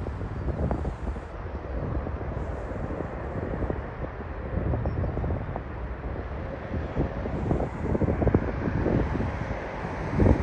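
Jet airliner engine noise on approach to land, mixed with heavy wind buffeting on the microphone.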